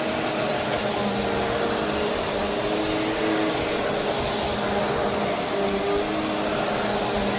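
BISSELL CleanView Swivel Pet Reach upright vacuum cleaner running steadily: a constant rush of air with a motor hum that wavers slightly in pitch.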